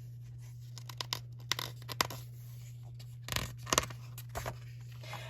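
Paper rustling and scraping with light clicks as a picture book's pages are handled and turned, in short bursts with a denser flurry just past the middle, over a steady low hum.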